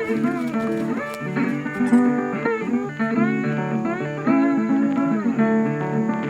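Background music: blues played on guitar, with notes that bend and slide in pitch.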